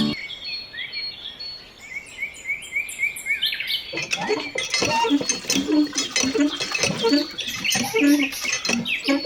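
Small birds chirping in quick repeated notes, joined about four seconds in by a busy run of sharp taps and clicks.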